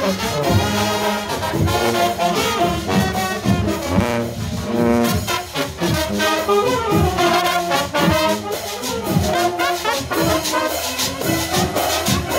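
Marching band playing a tune on saxophones, trumpets, trombones and sousaphone over a steady percussion beat of metal güiros and timbales.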